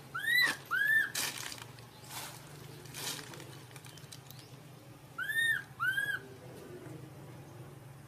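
Infant macaque crying: two pairs of short, high-pitched arched calls, each rising and falling, about half a second in and again about five and a half seconds in, with faint scuffing between them.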